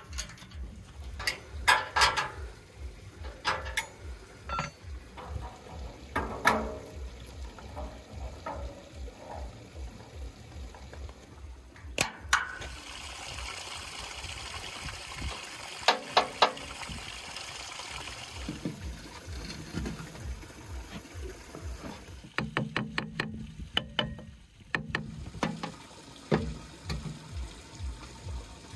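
Sharp metallic clicks and taps while a swivel caster wheel is bolted to a steel cart frame. Then a wet sloshing, scraping noise as mud mortar is mixed and scooped from a plastic tub. Near the end comes a quick run of knocks as stone blocks are set into the mortar.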